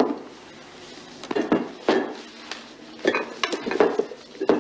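Glass gin bottles being set down one after another on a shop counter: a series of sharp clinks and knocks of glass against glass and against the counter, several in a row.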